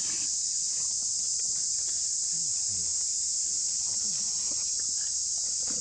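Steady, high-pitched insect drone, unbroken and even in level throughout.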